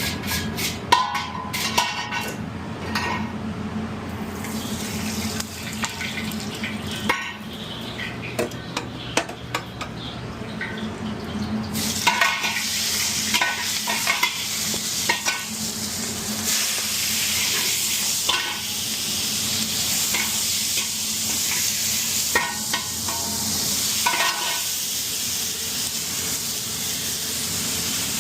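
A utensil scraping and clicking in a pan, then about twelve seconds in a sizzle starts suddenly and food keeps frying while it is stirred.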